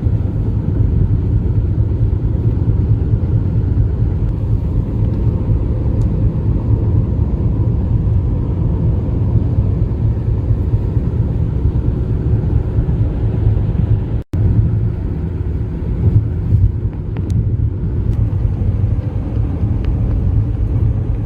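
Steady low rumble of road and engine noise inside a moving car's cabin. It cuts out for a split second about fourteen seconds in, then carries on.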